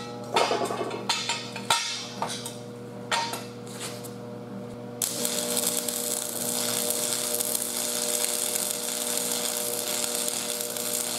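Several metal clanks and taps on the steel frame, then, about five seconds in, an arc welder strikes and runs a steady crackling, sizzling weld bead on the steel tubing.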